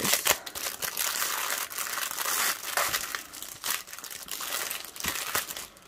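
Clear plastic bag crinkling and rustling as it is handled and opened, with many small sharp crackles.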